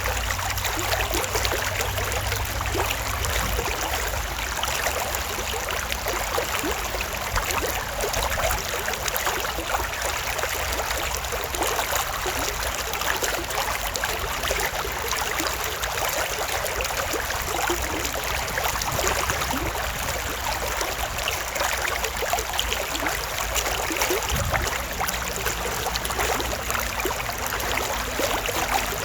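A shallow stream running steadily over stones, with many small splashes and trickles.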